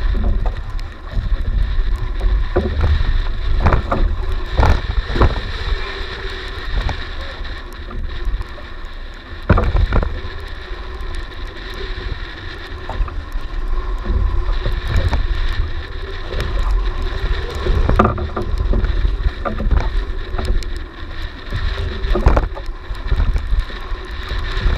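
Small outrigger fishing boat's engine running with a steady hum, under wind rumble on the microphone, with occasional sharp knocks and splashes from the hand-line fight at the gunwale.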